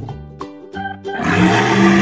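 Cartoon dinosaur roar sound effect starting about a second in: a loud, rough roar over a steady low growl, over light children's background music.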